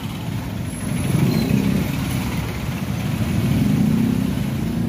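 Motor vehicle engines running close by in street traffic: a steady low engine drone that swells a little about a second in and again near the end.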